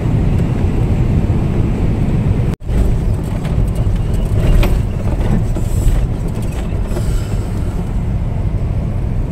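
Steady road and engine rumble inside the cab of a moving vehicle. The sound cuts out completely for a split second about two and a half seconds in, then the rumble carries on.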